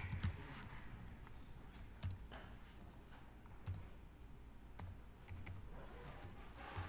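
Keystrokes on a computer keyboard, typed in short runs with pauses between: a quick flurry at the start and another near the end.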